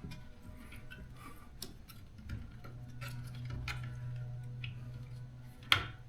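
Light clicks and taps of wires and plastic parts being handled and pushed into place in a garage door opener housing, with one sharper click near the end, over a low steady hum.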